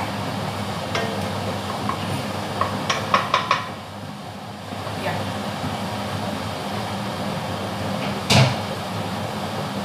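Chopped garlic and onion sizzling in oil in a wok over a steady low hum, with a quick run of wooden spatula taps about three seconds in and a single knock near the end.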